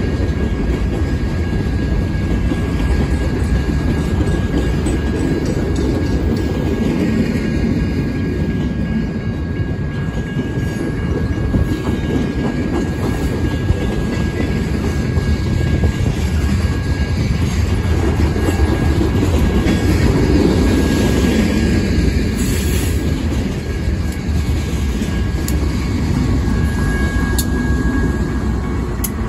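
Freight train rolling past at close range: a steady rumble of cars and wheels on the rails, with a diesel locomotive going by near the end.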